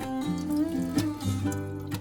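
Background instrumental music: a melody of short notes, changing two to four times a second.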